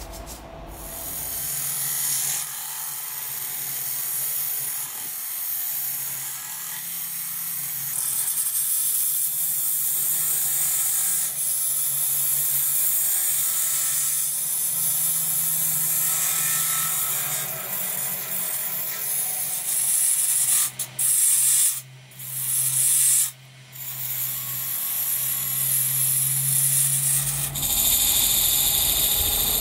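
Wood lathe running with a steady motor hum while a turning tool cuts into the face of a spinning wooden plate blank, a continuous scraping hiss of wood being shaved. The sound cuts out briefly twice about two-thirds of the way through.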